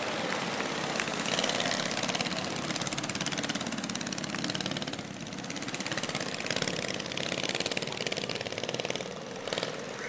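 Small engines of a line of parade go-karts built as miniature red sports cars, buzzing as the karts drive past one after another, growing louder and softer as each one goes by.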